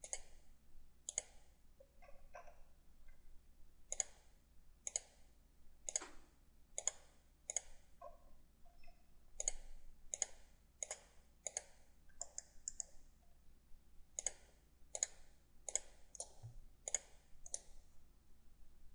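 Computer mouse clicking: about twenty sharp, irregularly spaced clicks, some in quick pairs.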